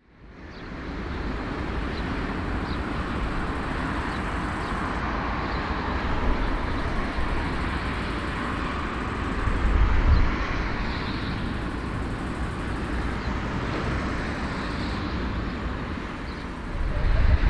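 Steady rushing, rumbling vehicle noise that fades in over the first second, with a brief swell about ten seconds in.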